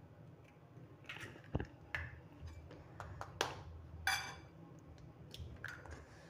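Hen's eggs being cracked with a table knife over a ceramic bowl: a few light taps and clicks of the blade on the shell as it is opened, one of them with a short ring about four seconds in.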